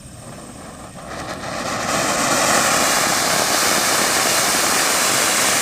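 Anar (flower pot) fountain firework spraying sparks with a steady, loud hiss that builds up about a second in and then holds.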